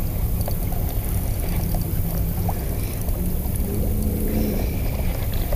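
Steady low rumble of the fast-flowing creek rushing close to the microphone.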